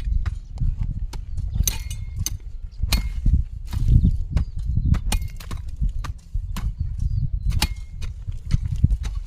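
Hand tool chopping into garden soil while weeding: irregular sharp knocks, roughly one every second or so, over a steady low rumble.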